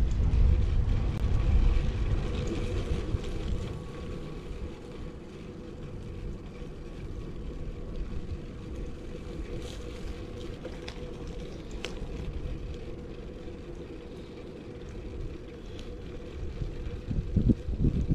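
Wind buffeting the microphone of a chest-mounted action camera on a moving road bike, over a steady low road rumble. The buffeting is heaviest for the first couple of seconds and gusts again near the end.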